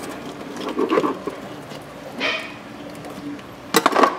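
A janitor fish being filleted by hand on a plastic cutting board: soft wet handling and tearing of the flesh, then a short clatter of sharp knocks near the end.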